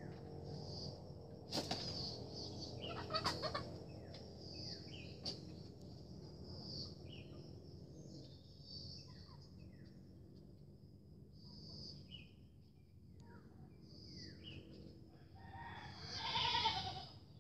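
Chickens calling around the house, with short falling chirps every second or so and a louder drawn-out call near the end. Two sharp knocks sound in the first few seconds, over a steady low hum.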